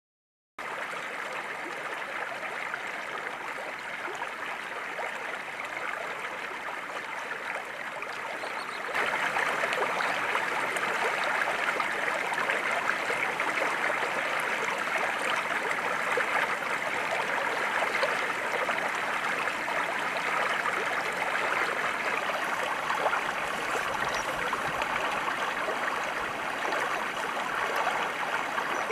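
Steady rush of running water, like a stream. It starts suddenly about half a second in and gets louder at a cut about nine seconds in.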